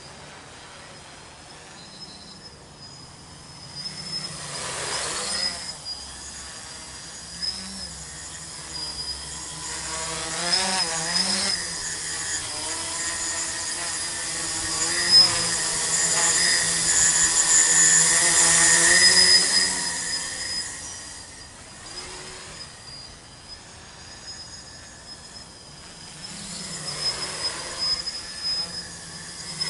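Home-built tricopter's three brushless motors (2216, 900 kV) spinning 8x4.5 carbon-fibre props in flight: a steady high whine whose pitch wavers with throttle changes about ten seconds in, growing loudest from about fifteen to twenty seconds in.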